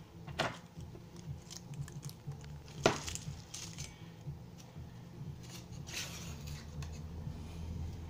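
Light unpacking noises: bubble wrap and plastic tape rustling, with a few small metal clinks. The sharpest is about three seconds in, as a brass lock cylinder and its keys are set down on the table. A steady low hum runs underneath.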